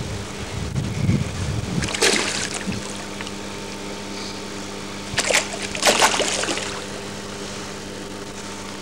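Fish splashing at the water surface as they take bread, once about two seconds in and again around five to six seconds in, over a steady mechanical hum.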